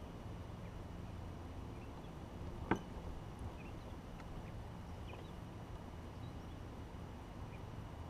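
Quiet outdoor ambience on the water with a steady low rumble of wind and water, broken once, a little under three seconds in, by a single sharp knock.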